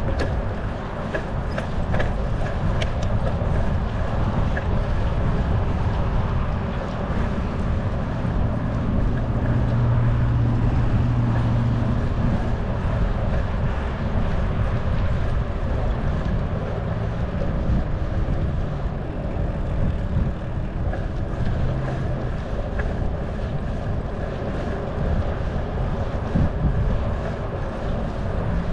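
Steady wind rush on the microphone and low rumble of a bicycle rolling along a paved path.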